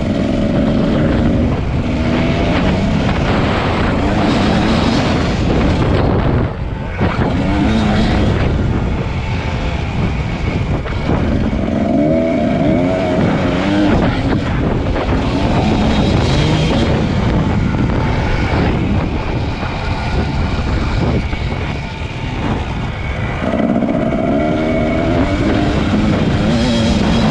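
Kawasaki KDX220's two-stroke single-cylinder engine under way, revving up and down repeatedly as the throttle is worked, with wind rushing over the helmet-mounted microphone. The engine briefly drops off about six and a half seconds in.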